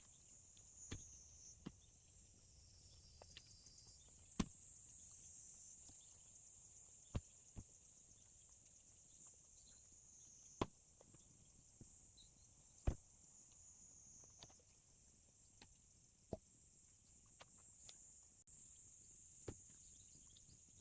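Split firewood logs knocking sharply as they are set onto a woodpile, one sharp knock every one to three seconds, over a steady high insect chirring.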